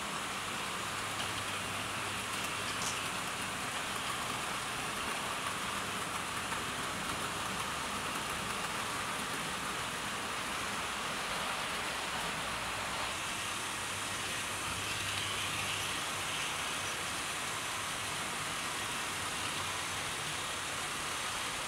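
Several Hornby 00 gauge model trains running at once: a steady, even rolling noise of small wheels on the rails and little electric motors.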